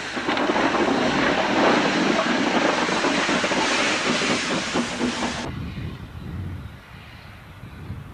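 Hunslet 0-6-0 saddle tank steam locomotive passing close by, with loud steam hiss from its open cylinder drain cocks. The hiss cuts off abruptly about five and a half seconds in, leaving a much quieter low rumble.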